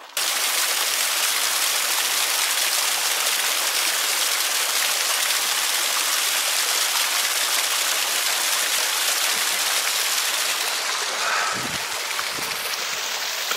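Small mountain stream spilling over rock close by, a steady, even splashing hiss.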